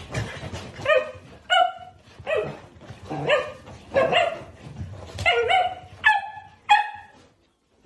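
A small dog, an Italian greyhound, barking in a run of about ten short, high yips, each rising then dropping in pitch, unevenly spaced.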